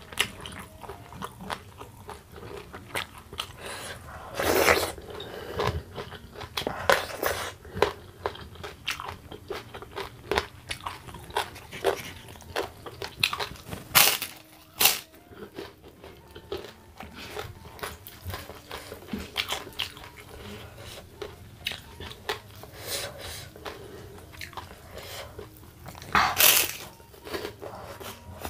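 Close-up eating sounds: steady chewing with many sharp crunches of crispy kerupuk crackers, and a few louder crunching bites, one about four seconds in, two around the middle and one near the end.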